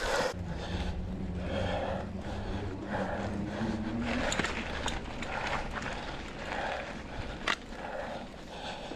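A mountain biker breathing hard in quick, rhythmic breaths, about two a second, over steady tyre and trail rumble. A low hum rises slightly in pitch during the first four seconds, and there is one sharp knock near the end.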